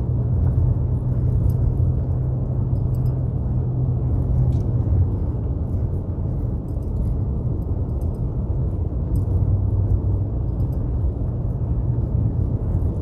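Inside the cabin of a Subaru Impreza driving on a snow-covered mountain road: a steady low rumble of engine and tyres, with faint scattered ticks on top.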